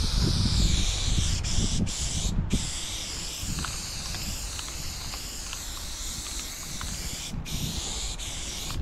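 Aerosol spray paint can hissing in long, nearly continuous sprays. The hiss breaks off briefly where the nozzle is let go: about two seconds in, again half a second later, and near the end. A low rumble runs underneath.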